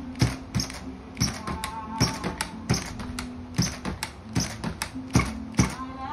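Redcat 1964 Chevy Impala RC lowrider hopping on its servo-driven suspension, its wheels and body landing on the table in quick, uneven taps about two to three times a second. Music plays underneath.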